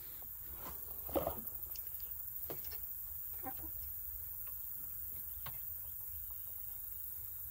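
Hens' claws tapping and scratching on a slatted wooden coop ramp as they climb toward the pop door, with a quick flurry of taps about a second in and scattered single taps after.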